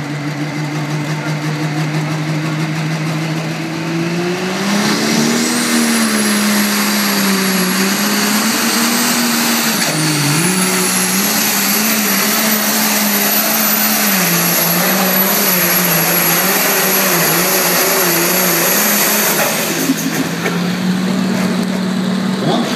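Case IH Pro Stock pulling tractor's turbocharged diesel engine making a pull. It runs steadily, then about four seconds in the revs climb with a high whine rising over the engine note, and the note wavers under load, with a brief dip about ten seconds in. Near the end the whine drops away and the engine settles to a lower, steady note.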